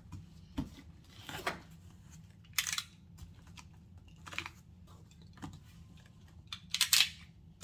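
Handling of a doll box and its packaging: a handful of short rustles and scrapes, spaced a second or so apart, the loudest pair near the end.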